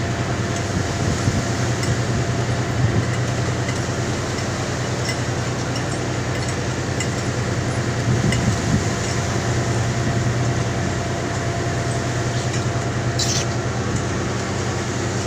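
Machinery on a squid-jigging boat running with a steady, loud drone: the automatic jigging reels and engine, with faint ticks now and then and a short hiss near the end.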